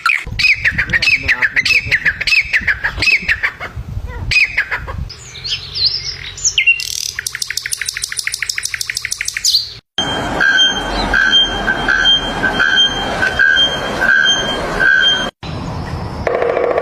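A run of different bird calls cut together with abrupt breaks: first repeated falling chirps, then a fast trill, then a series of evenly spaced whistled notes.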